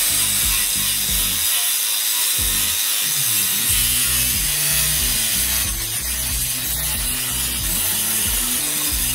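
DEKO DKAG20-125 cordless 125 mm angle grinder with a grinding disc dressing the surface of a steel angle iron: a steady abrasive hiss of disc on metal. Background music plays underneath.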